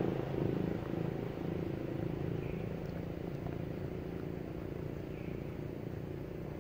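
A steady low engine hum, slowly fading, with two faint short high chirps.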